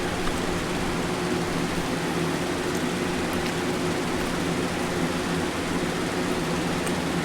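Steady low mechanical hum with an even hiss and no events: background machine or room noise.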